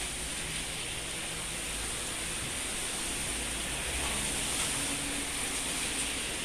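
Steady outdoor ambience: an even hiss with a thin, high, continuous tone above it.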